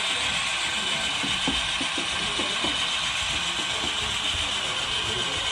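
HO scale model freight train running on the layout: its locomotives and wheels give a steady mechanical whir, with a quick run of clicks about one to three seconds in.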